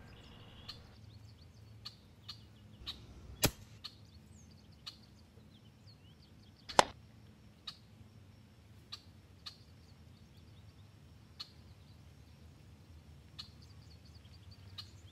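A sharp crack about seven seconds in, the loudest sound here: the shot of a .25-calibre EDgun Leshiy 2 PCP air rifle. A lighter crack comes about three and a half seconds in, over faint bird chirps and scattered light clicks.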